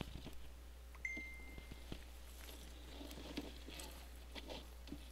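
Faint wet rustling and scattered small clicks and drips of a fishing net being pulled by hand up out of a hole in lake ice, with a short high whistle about a second in.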